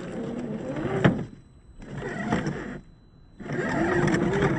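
RC crawler's 20-turn brushed electric motor and drivetrain whining in three throttle bursts, the pitch rising and falling as it crawls over rocks under load, with short pauses between bursts. A sharp knock comes about a second in.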